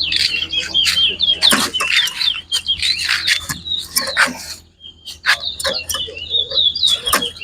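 Towa towa (chestnut-bellied seed finch) singing a rapid, warbling run of high notes, with a brief pause a little under five seconds in before the song resumes.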